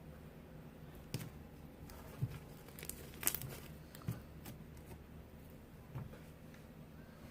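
Slime being squeezed and pressed by hand, giving scattered crackling pops and crinkles, with a small cluster of them in the middle.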